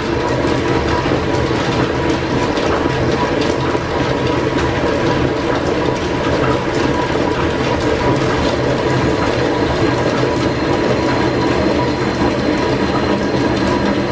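Line-shaft-driven engine lathe running steadily, its four-jaw chuck spinning a workpiece, giving a continuous loud clatter of gears and machinery.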